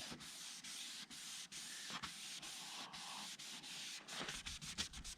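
Coarse-grit sandpaper on a hand pad rubbing back and forth over a plastic headlight lens, about two strokes a second: the first, coarsest sanding stage of a headlight restoration.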